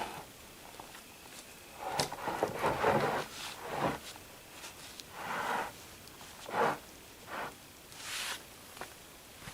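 A few irregular footsteps or scuffs, the first cluster about two seconds in and single ones after.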